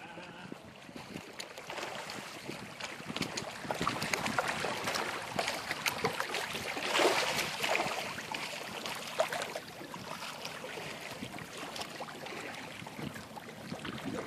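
Lagoon water splashing and lapping, a dense patter of small splashes that grows louder and is loudest about seven seconds in.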